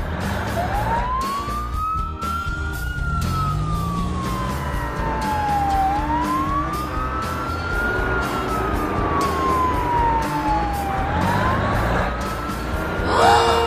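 Wailing siren slowly rising and falling, a little over two full cycles, with a brief loud blare near the end.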